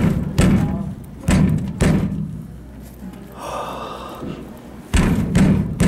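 Three pairs of heavy thumps against a prize machine's cabinet, the machine being banged to shift a prize that will not budge, with a short rattle in the middle.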